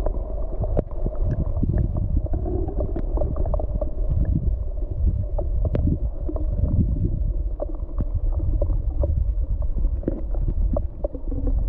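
Muffled underwater sound of a creek, picked up by an action camera held below the surface. A low water rumble runs throughout, with many small clicks and ticks scattered through it.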